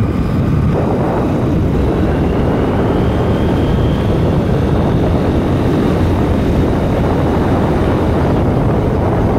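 Motorcycle being ridden at speed: its engine running steadily under a constant rush of wind over the microphone.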